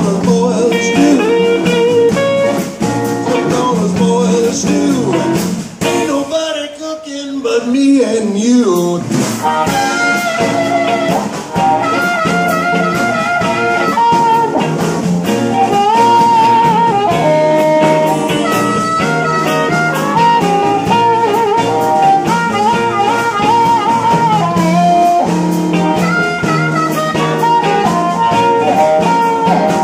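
Live electric blues band: an amplified blues harmonica solo with long, wavering held notes over two electric guitars, upright bass and drums. The band dips briefly about six seconds in.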